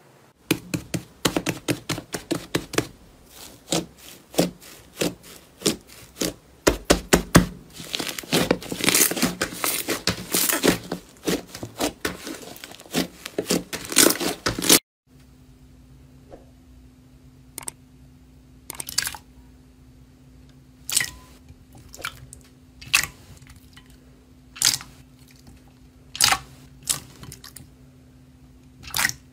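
Hands stretching and kneading fluffy slime, with dense crackling and popping of air bubbles. About halfway through it cuts to fingers pressing into glossy slime, with scattered sharp pops over a low steady hum.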